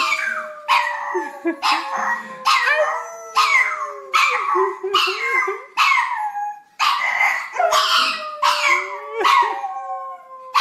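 Pug howling: two long howls that slowly fall in pitch, with short yelping cries about once a second in between.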